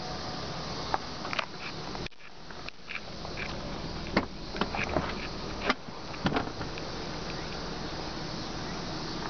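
Scattered clicks and knocks from hands handling a car's rear seat and headrest, over a steady low hum in the car's cabin; the sharpest knocks come about four and six seconds in.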